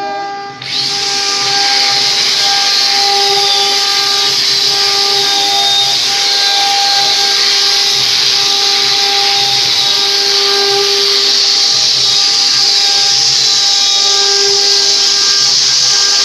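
Large sawmill saw cutting through wood: a loud steady hiss over a constant whine, starting abruptly about half a second in.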